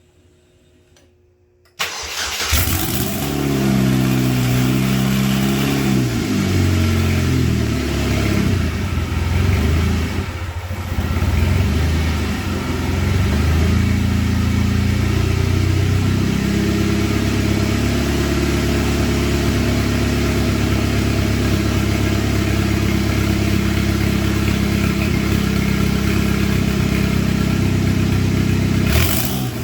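Turbocharged Chevrolet Cavalier's engine firing up about two seconds in on its newly installed fuel pump. It runs unevenly at first, with the revs rising and falling, then settles into a steady idle.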